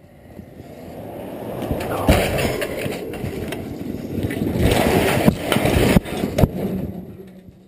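A guyed steel lattice met mast collapsing. A rushing clatter builds up over the first seconds, broken by several sharp metallic bangs as the mast buckles and its sections and cables fall, loudest between about five and six and a half seconds in. It fades near the end.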